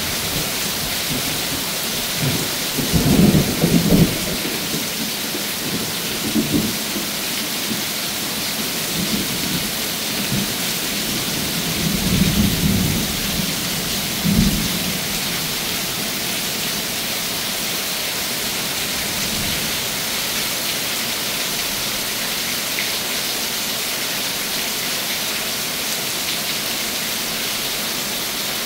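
Heavy thunderstorm downpour: steady rain falling hard on the pool and patio, with low rolls of thunder rumbling through in the first half, loudest about three to four seconds in and again around twelve to fifteen seconds.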